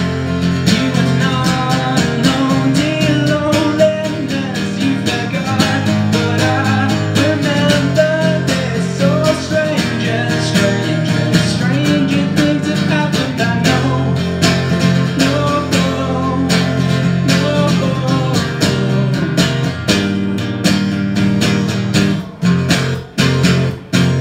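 Acoustic guitar playing an instrumental passage between sung verses, picked and strummed with a moving melody line, with a few brief breaks in the playing near the end.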